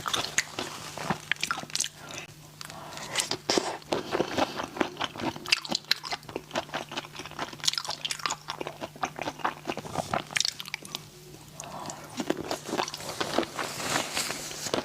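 A person chewing and crunching spicy raw shrimp, with many quick crisp crunches coming in irregular clusters.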